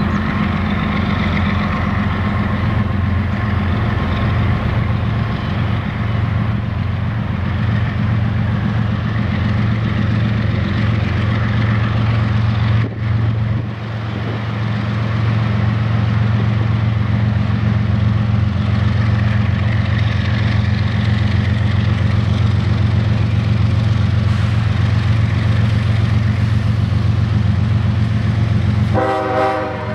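GE diesel locomotives leading a freight train, running under power as they approach: a steady, loud low engine drone. A short horn-like blast of several pitched notes sounds near the end.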